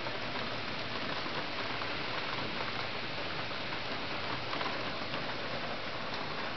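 Heavy rain pouring down in a storm downpour, a steady, dense hiss of rain on the street and surfaces.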